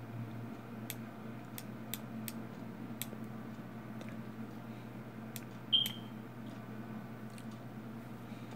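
Scattered computer mouse clicks over a steady low room hum, with one short high-pitched beep about six seconds in.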